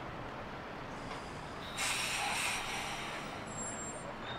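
Waggon Union GT8 high-floor tram rolling slowly into a stop with a steady rumble. About two seconds in comes a short, loud hiss of compressed air as it comes to a halt.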